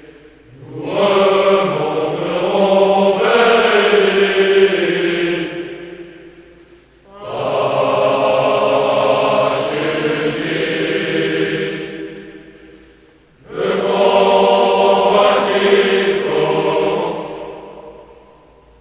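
Unaccompanied voices chanting in slow, sustained phrases, with no instruments. There are three long phrases, each fading away before the next begins.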